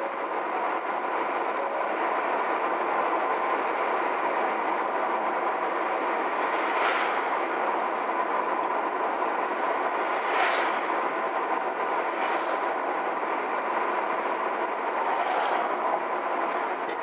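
Car driving on a paved road, heard from inside the cabin: a steady rush of tyre and road noise, with four brief swells of hiss spread through.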